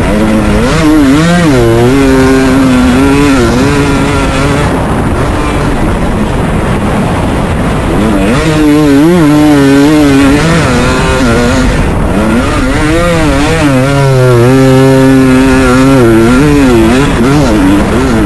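KTM 250 two-stroke dirt bike engine heard from onboard, the revs climbing and dropping in quick waves as the throttle is worked through the turns, easing off twice for a few seconds, over a steady rushing noise.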